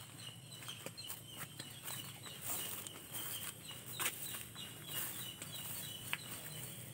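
Outdoor ambience of footsteps and rustling through grass and dry banana leaves, with scattered sharp clicks, and birds calling in the background.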